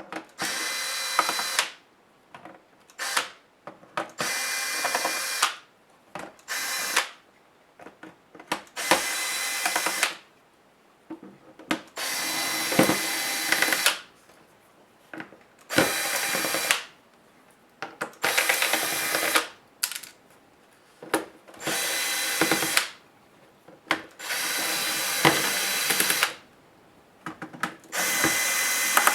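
Small cordless electric screwdriver running in short bursts, about a dozen runs of a second or two each with brief pauses between, as it drives out laptop case screws one after another.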